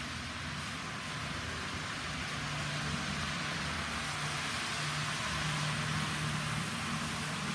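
Model train running on the layout's track: a steady rolling hiss with a low motor hum that grows louder in the middle as the train passes close.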